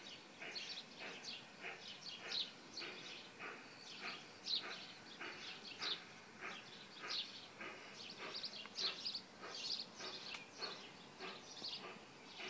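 Small birds chirping: a steady scatter of short, high chirps, a few a second, fairly faint.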